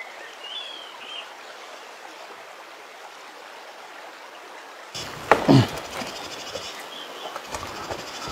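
Steady rush of flowing water, with a couple of brief bird chirps about half a second in. About five seconds in the background changes abruptly and a loud, short cry falling in pitch cuts through, followed by scattered knocks.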